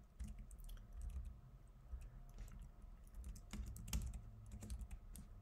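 Typing on a computer keyboard: quiet, irregularly spaced key clicks.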